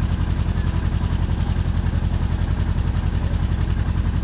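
Boat engine running steadily under way, a low, fast, even throb, with the hiss of wind and water above it.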